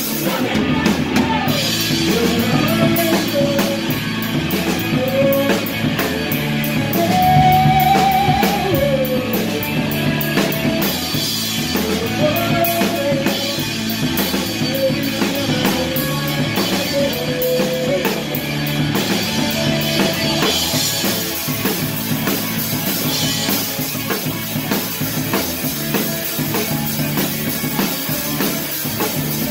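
Rock band playing live, heard from right beside the drum kit: fast drumming with dense cymbal strokes over electric guitar. The cymbal strokes thin out about two-thirds of the way through.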